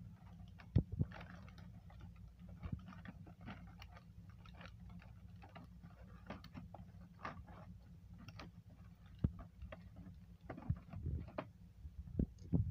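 Clear plastic blister tray of a toy-car five-pack crinkling and clicking as it is slid out of its cardboard sleeve and handled, with a few sharper taps about a second in and near the end. A steady low hum runs underneath.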